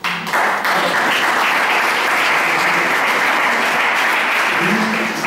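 Audience applauding: one steady round of clapping that starts within the first second.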